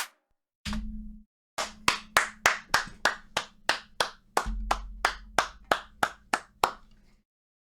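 One person clapping hands in a slow, even round of applause, about three claps a second.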